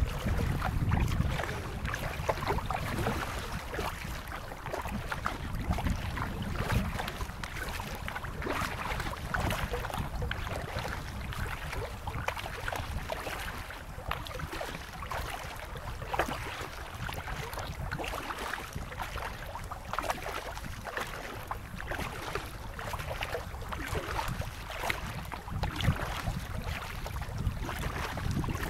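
Kayak paddles dipping and splashing in river water in irregular strokes, with wind noise on the microphone.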